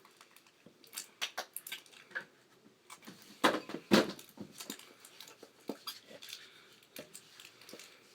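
Plastic being handled: scattered clicks, crinkles and rustles, with two louder knocks about midway.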